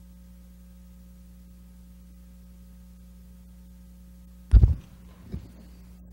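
Steady low electrical hum from the sound system. About four and a half seconds in comes a short, loud noise, and a fainter one a moment later.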